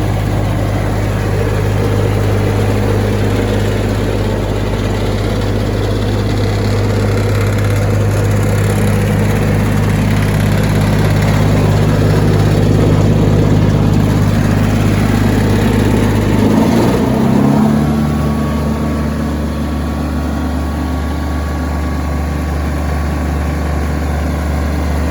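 Diesel engine of a Jensen A540 towable wood chipper running steadily. About two-thirds of the way through its engine note shifts, then settles into a slightly quieter steady run.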